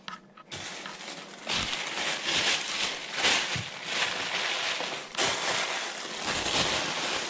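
Thin plastic shopping bag rustling and crinkling as it is handled and wrapped around a live mud crab, a continuous crackly rustle that grows louder about a second and a half in.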